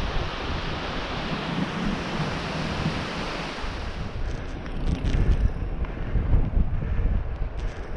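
Wind rushing over the rider's camera microphone while riding an e-mountain bike down a lane: a steady hiss with gusty low rumbles that grow choppier and louder in the second half.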